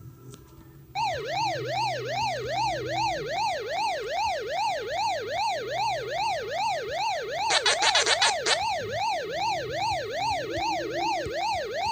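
A siren-like tone warbling rapidly up and down, about two and a half sweeps a second, starting about a second in. A few short sharp clicks sound around two-thirds of the way through.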